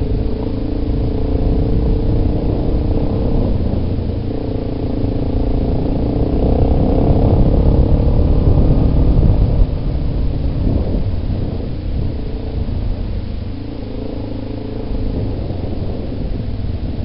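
Yamaha Big Bear ATV's single-cylinder four-stroke engine running under varying throttle while riding a dirt trail, its pitch rising and falling, loudest about seven to nine seconds in and easing off a few seconds later. A low rumble from the ride sits underneath, picked up by a helmet-mounted microphone.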